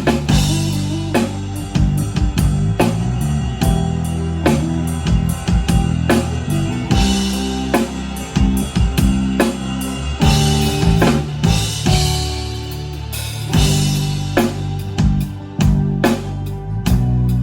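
A band playing live without singing: a drum kit keeps a busy beat on kick and snare over sustained low bass notes and other instruments.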